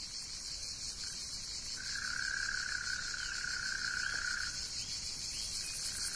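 Insects singing: a steady, high-pitched buzz, joined by a lower, even trill from about two seconds in until about four and a half seconds.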